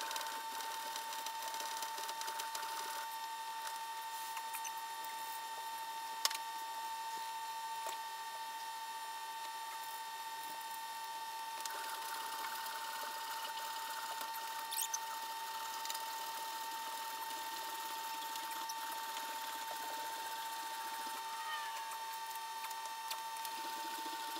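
A steady high-pitched electronic whine over a constant hiss, with one sharp click about six seconds in and a couple of faint ticks around fifteen seconds.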